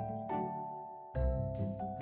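Background music: a light children's instrumental of struck, bell-like notes, a new note about every half second, with a brief hiss a little past a second in.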